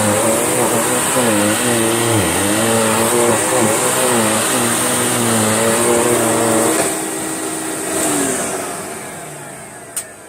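Electrolux Turbo2 Super vacuum cleaner running, its motor pitch dipping and rising as it is worked over the mess. About seven seconds in it is switched off and winds down, fading away. A single click comes near the end.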